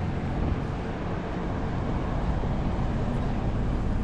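Steady city street noise: a low rumble of traffic with no distinct events.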